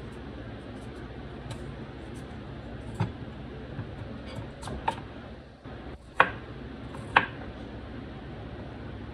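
Kitchen knife cutting a peeled potato into chunks on a wooden cutting board: about five sharp knocks of the blade striking the board from about three seconds in, the loudest two near the end, over a steady background hiss.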